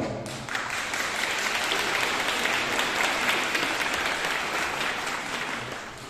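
Audience applauding, many hands clapping at once, the applause dying away near the end.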